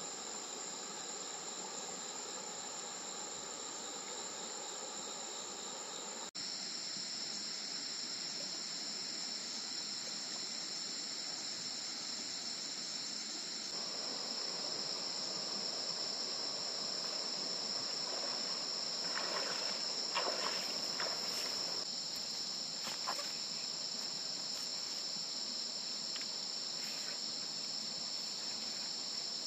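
A steady chorus of crickets and other insects, a continuous high-pitched trill, with a few faint clicks and crackles a little past the middle.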